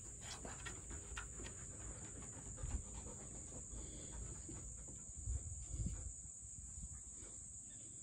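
Steady high-pitched insect chorus buzzing without a break, with a low rumble and a few dull bumps on the microphone near the middle.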